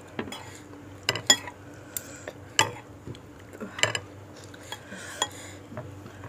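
Metal cutlery clinking and scraping against a soup bowl while eating, several sharp, separate clinks spread over a few seconds.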